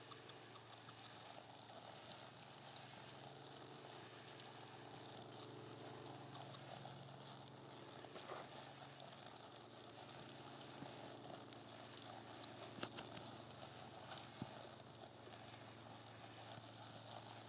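Near silence: faint outdoor ambience with a low steady hum and a few soft clicks.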